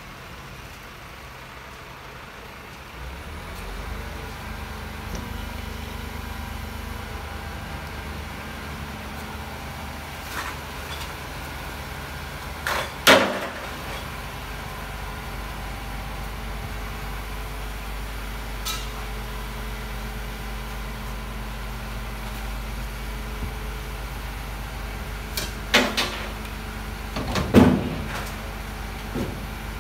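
Geesink garbage truck's diesel engine running with a steady low hum that grows louder about three seconds in. Over it come sharp metallic bangs: one about a third of the way in and a louder pair near the end.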